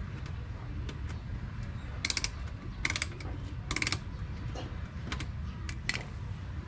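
Screwdriver turning a screw in the plastic wheel-arch trim, giving three short bursts of rapid ratchet-like clicking about a second apart, then a few single clicks.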